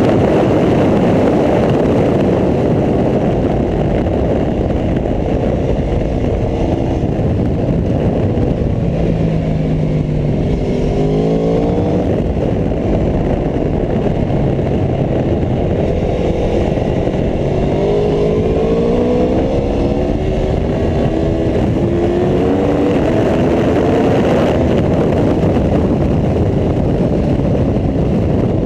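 Aprilia Tuono V4 1100RR's V4 engine running hard on track, its pitch rising and falling several times as the rider accelerates and shifts. Heavy wind rush on the microphone dominates throughout.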